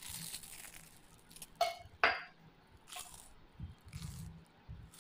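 Stainless steel tumbler being set down: two sharp metallic clinks about half a second apart, each ringing briefly.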